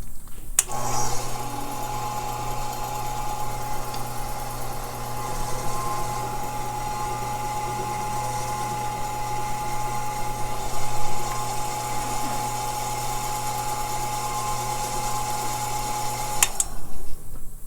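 Faceting machine running steadily, a low hum with a constant whine over a hiss, as a peridot is held by hand against the spinning polishing lap to polish out a scratch on its table facet. It starts about half a second in and cuts off near the end.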